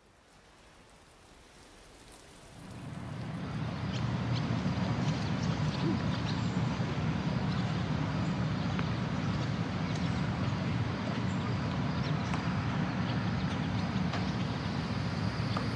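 Outdoor ambience fading in over the first few seconds: a steady low rumble, like distant traffic, with faint scattered chirps above it.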